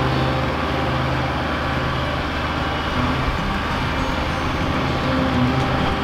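Kubota tractor's diesel engine running steadily as the tractor carries a heavy log on its front loader.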